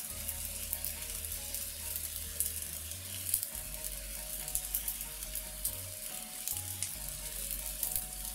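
Fish and shellfish bubbling and sizzling in a shallow broth of sake, water and butter in a black steel frying pan: a steady stream of fine crackles over a hiss.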